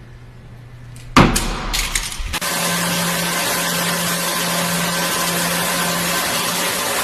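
A machine crash: a sudden loud bang about a second in, followed by a brief rattle, then a steady noisy running sound with a low hum.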